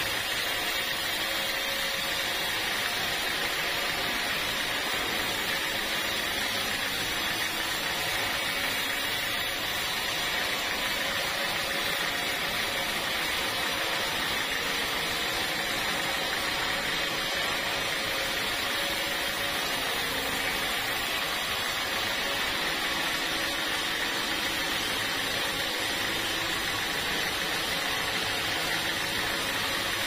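A sawmill running with a steady, unbroken machine noise that holds one level throughout.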